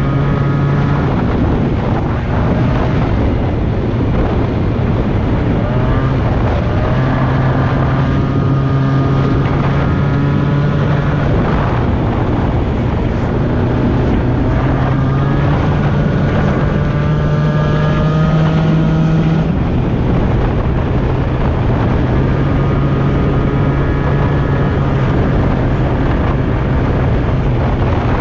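Two-stroke Minarelli scooter engine running with its revs rising and falling several times, with some wind noise on the microphone.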